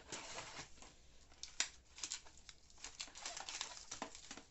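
Faint crinkling of foil chocolate wrappers and light clicks of a clear plastic tray as wrapped chocolates are picked out by hand, in short scattered crackles and taps.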